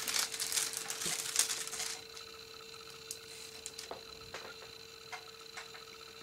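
Plastic film on a diamond-painting canvas crinkling and rustling under the hands for about two seconds. After that it goes quieter, with scattered light taps and clicks as the canvas edge is pressed and smoothed.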